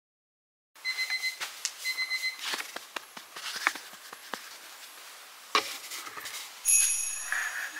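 An electronic alarm beeping in quick pulses, followed by soft rustling and pats on a duvet as a sleeper is woken. A short, bright, high tone sounds near the end.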